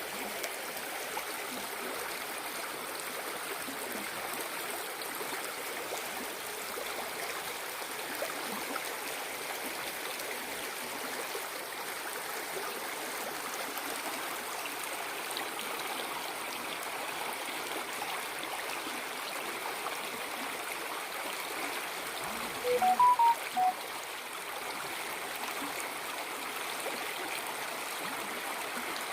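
Waterfall rushing steadily, an even unbroken wash of falling water. About three quarters of the way through, a quick run of four or five short, high notes cuts through louder than the water.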